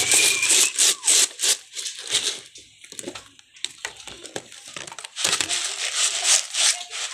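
Irregular rustling, crinkling and scraping: handling noise from a phone being pushed against a metal gate and the leafy plants beside it.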